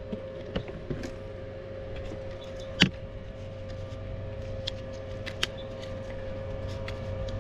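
Steady machine hum with a constant tone over a low drone, broken by a few light clicks and one sharp click a little under three seconds in.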